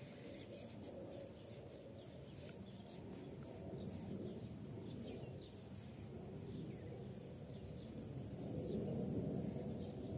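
Outdoor ambience: wind noise on the microphone, growing louder near the end, with faint bird chirps.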